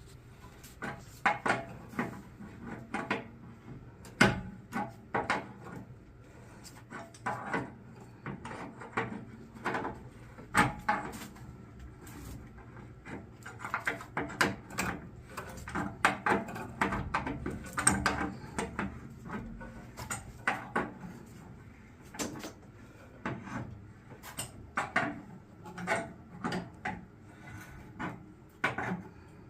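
Irregular knocks, clanks and scraping from hand work with tools on pipe fittings, disconnecting an old water heater's gas line and vent.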